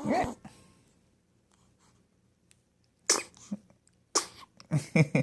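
A person sneezing: one loud sneeze right at the start, then several more short sharp bursts from about three seconds in.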